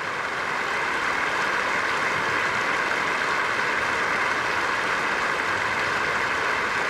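Football stadium crowd and players applauding together, a steady unbroken sound of many hands clapping.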